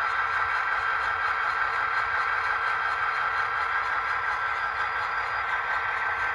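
Diesel locomotive engine sound from a Soundtraxx Blunami BLU-2200 sound decoder, idling steadily after its startup sequence. It plays through a small 28 mm speaker, so it sounds thin and has little bass.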